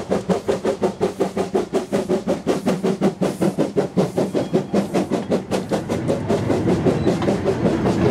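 Small steam tank locomotive passing close by with a train of steel hopper wagons: sharp, even exhaust chuffs about five a second, giving way about six seconds in to the steady rolling rumble of the wagons' wheels on the rails.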